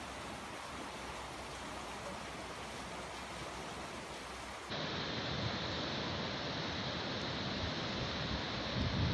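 Steady rushing noise of torrential floodwater. About halfway through it cuts to another, louder recording of the flood, with wind buffeting the microphone near the end.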